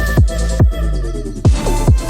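Electronic dance music with a heavy kick drum that drops in pitch on each beat. The kick drops out for about a second midway, then comes back.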